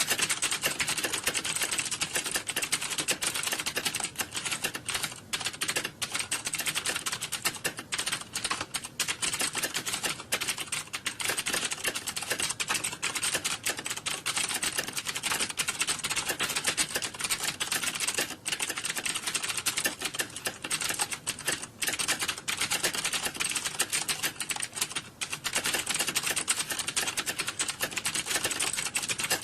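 Fast, continuous typing on a computer keyboard: a dense stream of key clicks broken by a few short pauses.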